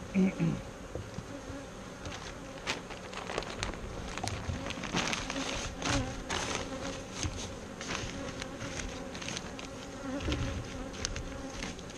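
Honeybees buzzing in a steady hum around a worked hive, with scattered light clicks and knocks throughout.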